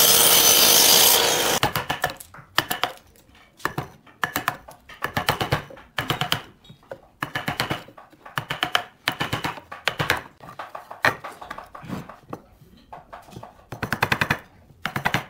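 A miter saw cuts through a pine board and stops about a second and a half in. Then a wood chisel cuts out the waste between the saw kerfs of a notch, in short repeated bursts of cutting about once a second.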